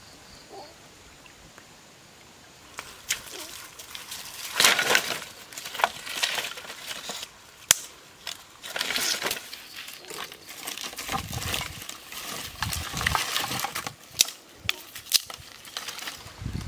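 Dry sticks and branches being handled and laid on a pile of firewood, knocking and scraping together in irregular clatters, with a few sharp knocks. This starts after about three quiet seconds.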